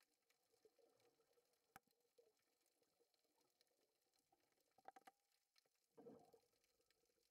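Near silence underwater: faint scattered clicks and crackle, a few sharper clicks a little before five seconds in, and a short low rumble about six seconds in.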